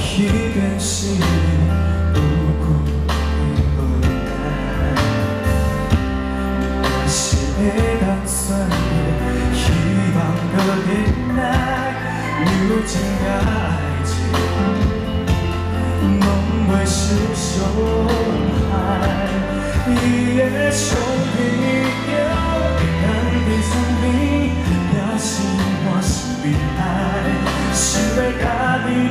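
Live pop song played by a band with a singer, heavy bass and sharp recurring drum or cymbal hits, as heard at a concert.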